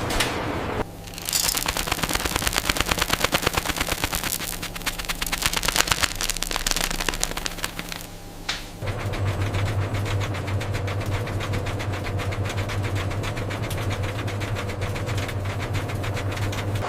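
Processing-line machinery: a fast, dense rattle of clicks for several seconds, then after a short break a steady low machine hum.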